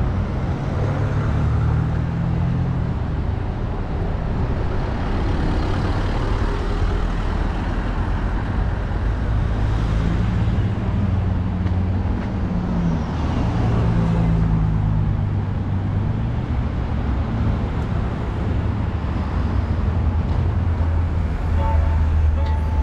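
Road traffic: several cars pass one after another, their engine hum swelling and fading over a steady low rumble of tyres on the road.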